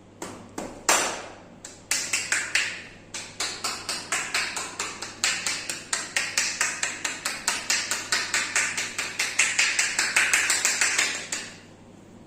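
Percussive massage strokes: hands striking the body in quick chopping slaps, a few slower single slaps at first, then a fast even run of about four to five strikes a second that stops suddenly near the end.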